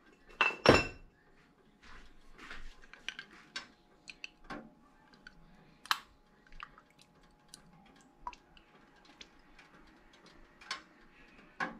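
Kitchen handling sounds as a bottle of cooking oil with a pour spout is picked up and oil is poured into a nonstick frying pan. Two louder knocks come about half a second in, then scattered light clicks and taps.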